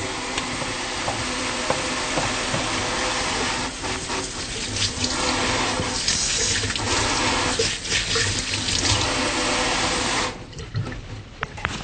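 Tap water running into a sink while hands are washed under it, a steady rush that stops about ten seconds in.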